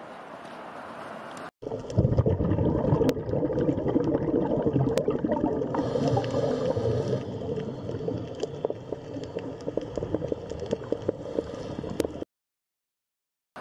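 Underwater bubbling and gurgling, dense with small crackling clicks, which starts suddenly about a second and a half in and cuts off abruptly near the end. Before it, a faint steady outdoor hiss.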